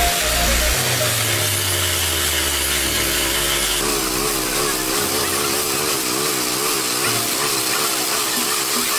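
Petrol-engined abrasive rail saw cutting through a steel rail: the engine runs under load over the dense hiss of the cut-off disc grinding the steel. From about halfway through, the engine note wavers up and down.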